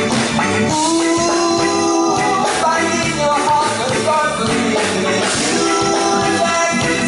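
Live band music with a sung lead vocal, held notes over a steady beat.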